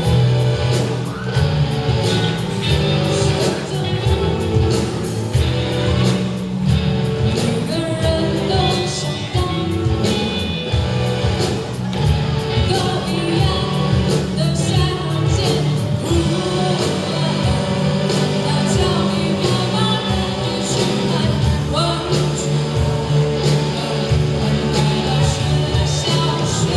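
Live student rock band playing, with singing over electric guitar, bass and drums.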